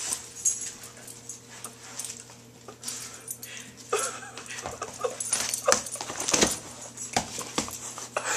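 Dogs wearing new dog boots stepping and shuffling on a tile floor, the boots giving a run of irregular taps and scuffs, with a few short dog whimpers.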